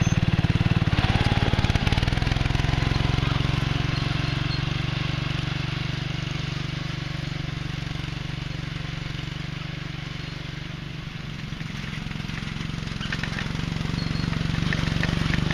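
Riding lawn tractor engine running steadily as the tractor drives off pushing snow with its front blade and returns: the sound fades to its quietest about eleven seconds in, then grows louder again as it comes back.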